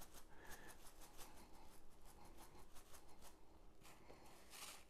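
Faint rattle of coarse seasoning granules in a shaker jar of Montreal steak seasoning, shaken in quick repeated shakes over a mixing bowl.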